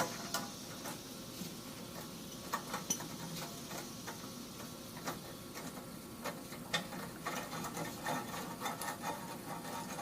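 Scattered metallic clicks and clinks of hand tools and exhaust hardware as the rear muffler of a Porsche 928 is unbolted and worked free, coming more often from about six seconds in.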